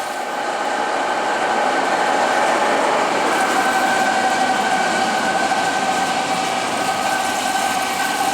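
1960 Webster Bennett 36-inch Model DH vertical turret lathe running under power: a steady mechanical hum with a few steady whining tones from its drive, nice and quiet.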